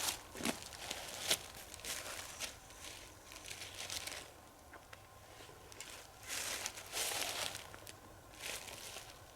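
Dry leaf litter crunching and rustling underfoot in uneven bursts as someone walks through the woods.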